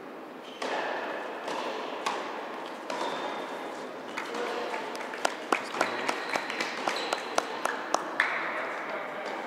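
Tennis balls being struck and bouncing on the courts of a large indoor hall: sharp pops that echo under the roof, over a steady hall murmur. Around five seconds in they come thick and fast, about three a second, for some three seconds.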